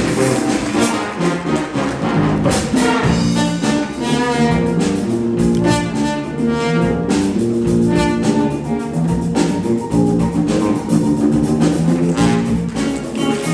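Jazz ensemble playing a funk tune live: a brass section of trumpets and trombones leads over electric bass, guitar, drum kit and conga drums.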